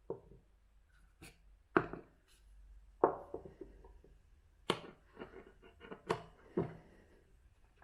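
Irregular knocks and clicks of hard parts being handled and set down, as coffee grinders are opened to show their grounds. The two loudest knocks come about two and three seconds in.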